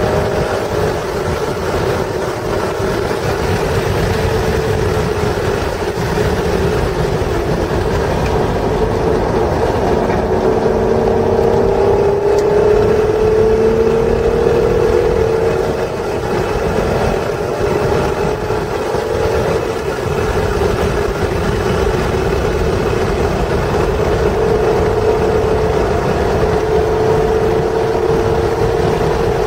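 1996 Acura NSX's stock 3.0-litre V6 driven hard on track, heard from inside the cabin. Its note climbs in pitch under acceleration and drops back several times, over heavy road and wind noise.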